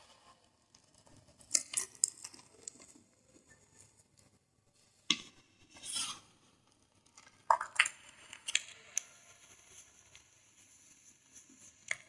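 Thin pieces of gym chalk crushed between the fingers into a bed of chalk powder: sharp, crisp crunches and snaps in three bursts, with a softer powdery crumble in between.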